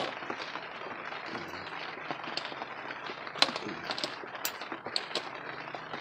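Pliers working the cotter pin in the front hub nut of a 2003 Ford F-150 as it is straightened, giving a handful of sharp metal clicks in the second half over a steady hiss.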